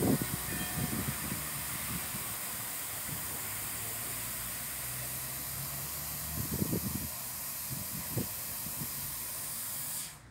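Floor-mounted misting fountain nozzles hissing steadily as they spray fine water mist, then shutting off abruptly near the end. A few brief low rumbles sound under the hiss.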